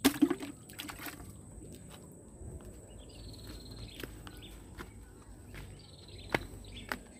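A sharp splash and knock at the start as a fish is put into a plastic bucket of water. Later come two faint, thin, high bird calls, and two sharp ticks near the end.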